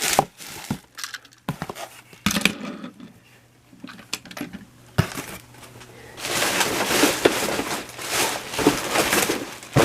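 Toy packaging being handled and unwrapped: a few scattered clicks and knocks, a sharp click about halfway, then a few seconds of crinkling and rustling with sharp clicks in the second half.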